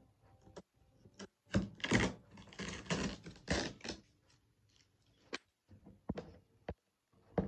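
A cardboard subwoofer box being handled and shifted, with a run of scraping and rustling about one and a half to four seconds in, then scattered clicks and scratches as a finger picks at the hard packing tape on its edge.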